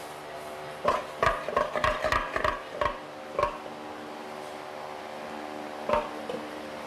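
A quick run of metallic knocks and clatter, about a dozen in two and a half seconds, then a single knock near the end, around a sow's steel farrowing crate, over a steady mechanical hum.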